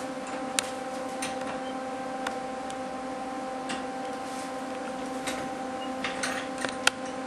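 Scattered light clicks and taps of steel rod being handled and set into a bench vise, over a steady hum.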